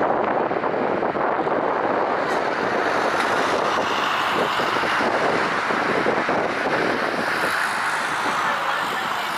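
Boeing 777-200LR's GE90 jet engines at takeoff thrust: a loud, steady rushing roar that eases slightly near the end.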